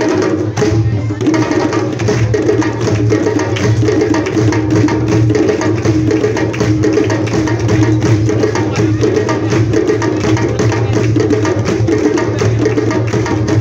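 A djembe ensemble playing a traditional Malian rhythm together, with dense, continuous drum strokes.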